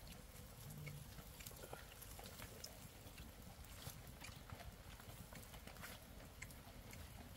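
Near silence: faint outdoor background with scattered light ticks and clicks and a brief faint low hum about a second in.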